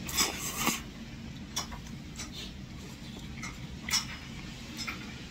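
A person slurping noodles in two quick pulls right at the start, then chewing, with a few light clicks spread through the rest.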